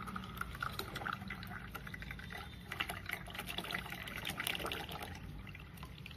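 Freshly squeezed orange juice being poured, trickling and splashing with many small crackles.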